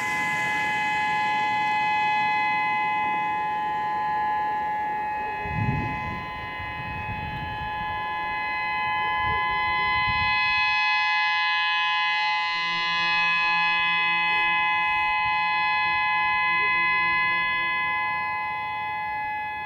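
Outdoor warning sirens sounding a steady tone: the Whelen 3016 electronic siren, with distant Federal Signal 2001 sirens, holding a chord of several unchanging pitches. A passing vehicle's low rumble rises and fades from about six to ten seconds in.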